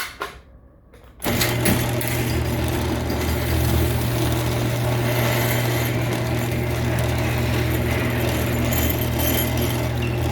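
Chain-drive garage door opener running, its motor humming steadily and driving the chain along the rail with a rattle; it starts about a second in.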